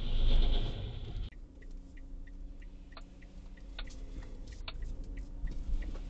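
Loud road noise heard from inside a moving car for about the first second, then a quieter car cabin where a turn-signal indicator ticks about three times a second over a low engine hum, with a few sharper clicks among the ticks.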